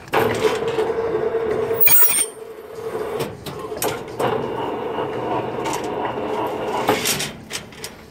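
Electric rebar stirrup-bending machine running, a steady mechanical drone with a constant tone. There is a sharp metallic clank about two seconds in, and the sound eases off near the end.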